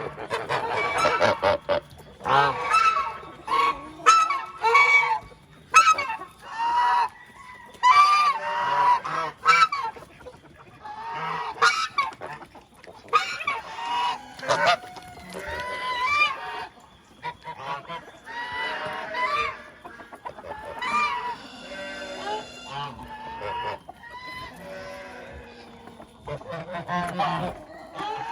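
Geese honking, many loud calls overlapping in repeated bursts with brief lulls between them.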